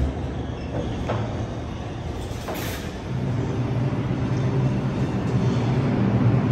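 R142 subway train pulling out past the platform: wheels clacking a few times on the rails under a steady running hum. About three seconds in, the hum grows louder as a set of steady motor tones comes in.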